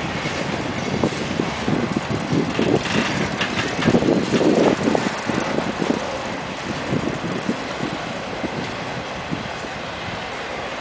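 Freight train of boxcars rolling past at close range: steel wheels rumbling on the rails with irregular clanks and knocks, louder in the first half and easing a little after about six seconds.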